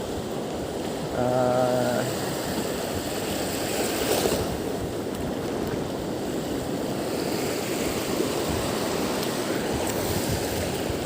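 Steady rushing noise of wind and water. About a second in a short, level humming tone sounds for under a second, and around four seconds in there is a brief swish.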